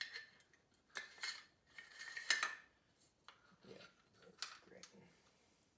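Metallic clicks and clacks as a Citadel Boss 25 semi-automatic 12-gauge shotgun is handled, its metal parts knocking together about half a dozen times, loudest about two seconds in.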